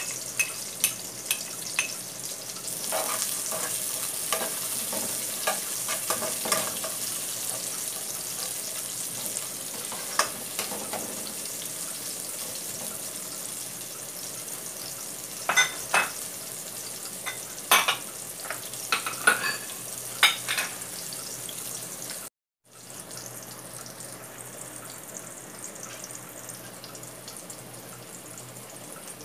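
Ginger slices and shallot rings sizzling in hot oil in a pot, a steady high hiss. A cluster of sharp clinks from a metal spoon stirring against the pot comes a little past halfway.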